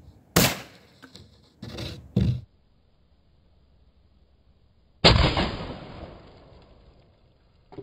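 HHO (hydrogen-oxygen) gas igniting in a 12-ounce plastic bottle about five seconds in: a sudden loud blast that fades over about two seconds as the bottle shoots off like a rocket without bursting. Before it, a few brief knocks and rustles.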